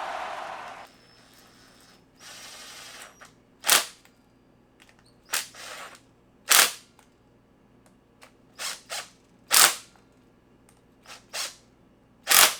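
Cordless driver running a screw in for about a second, then about nine short, sharp bursts a second or so apart as it snugs the screws of a replacement straight-shaft trimmer gearbox head tight.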